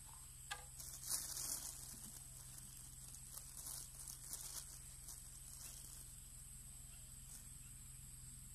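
Faint rustling and scuffing from anglers shifting in the grass and handling their fishing rods, with a sharp click about half a second in and a spread of scuffs over the next five seconds, over a steady high hiss.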